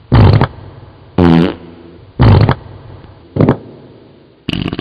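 A string of loud fart noises. Four separate blasts come about a second apart, the second with a clear pitch, then a quick spatter of short ones near the end.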